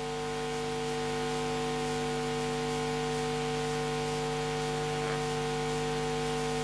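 Steady electrical mains hum of several fixed pitches with a faint hiss underneath, from the sound system, holding constant with no other events.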